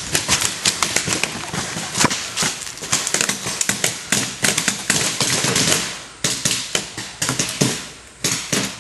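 Paintball markers firing in rapid, irregular volleys, several sharp pops a second from more than one gun, thinning out about six seconds in.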